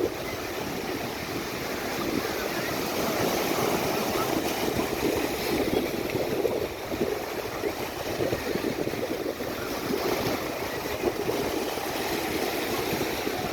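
Ocean surf: a steady rush of breaking waves that swells and eases.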